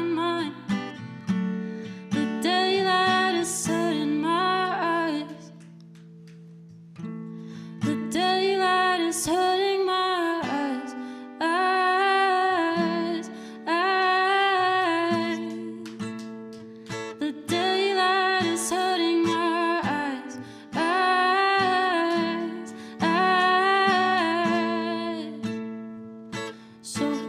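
An acoustic guitar strums chords under a solo singer's voice, which sings long held phrases with short breaks between them. About six seconds in, the music drops briefly to a quieter lull.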